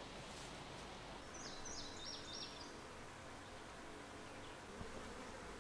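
Quiet outdoor ambience with the faint buzzing of flies around a hanging maggot-feeder box. A short run of high chirps comes about a second and a half in.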